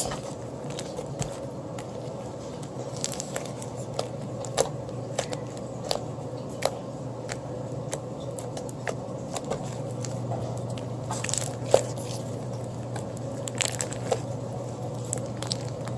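Crunchy slime mixed with cut plastic straw pieces being squeezed and played with, giving irregular crackles and small pops.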